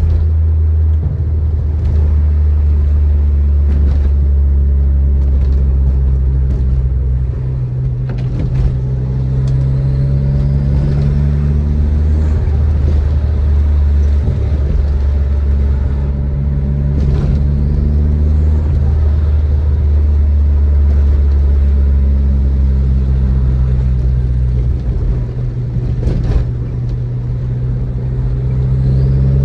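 Turbocharged 1.8-litre 20-valve inline-four of a tuned Audi A3 with a 3-inch stainless exhaust, driving at a steady cruise with a low, even drone. The engine note rises and eases off gently a few times as the throttle changes, and a few faint clicks show now and then.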